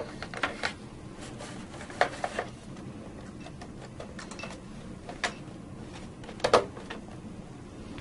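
Scattered clicks and knocks of the front cover of an Eaton Series NRX power circuit breaker being handled and seated onto the breaker body: a few near the start, a cluster about two seconds in, and the loudest knock about six and a half seconds in.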